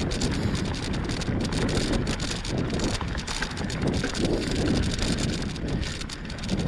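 Wind buffeting the microphone of a rider moving along a dirt trail on a bike: a steady, uneven rushing noise that swells and dips in gusts.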